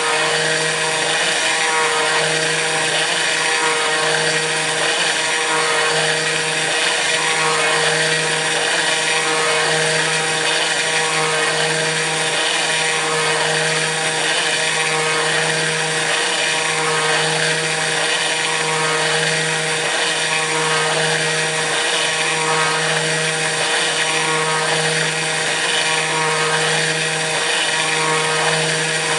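Kress FME-1050 router spindle on a CNC machine running steadily while milling aluminium, with a steady whine. A lower hum underneath breaks off and resumes every second or two.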